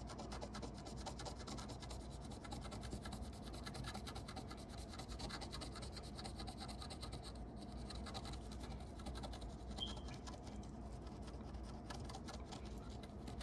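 A coin scratching the coating off a scratch-off lottery ticket in quick, continuous scraping strokes, uncovering the winning numbers.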